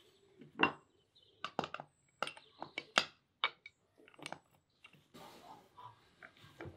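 Metal clinks and clanks from the lid and swing-clamp arms of a cast-aluminium Afghan pressure cauldron as the lid is seated and clamped shut: a quick, irregular run of sharp knocks, then quieter scraping as the clamp screw is turned.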